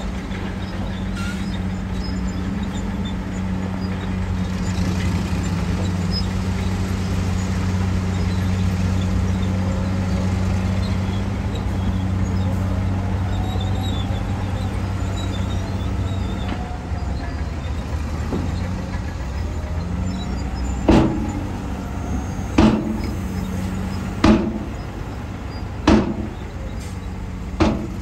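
Heavy diesel engines of a dump truck and a bulldozer running steadily with a low hum. About three-quarters of the way through come five sharp knocks, roughly one every second and a half.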